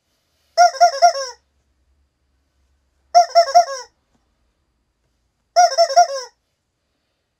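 A rubber chicken toy being squeezed, squawking in three short bursts about two and a half seconds apart. Each burst is four quick squeaks, the last one dropping in pitch, with dead silence in between.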